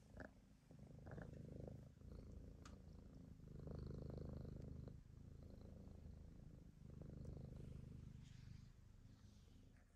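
Faint, low purring, like a cat purring close to the microphone, swelling and fading in slow waves every couple of seconds.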